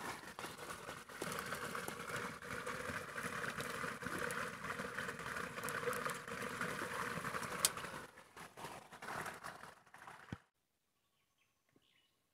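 Small forest spring trickling steadily over leaves and stones, with one sharp click about seven and a half seconds in. The water sound cuts off suddenly about ten seconds in.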